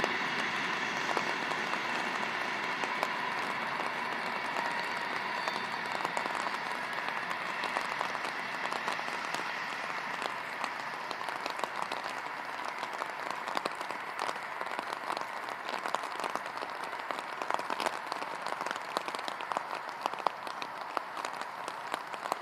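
Work train of flat wagons loaded with track panels rolling past at a distance: a steady hiss of wheels on rail with many light clicks and rattles, slowly fading as the train draws away. A faint steady whine sounds during the first few seconds.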